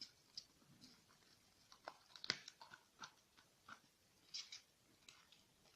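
Faint sticky crackles and clicks of a clear-glue, soap and foam slime mixture being stirred in a bowl, scattered irregularly with a few louder ticks.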